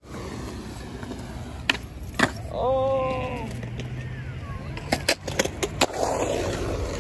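Skateboard wheels rolling on smooth concrete with a steady low rumble, broken by several sharp clacks. A voice calls out briefly about three seconds in.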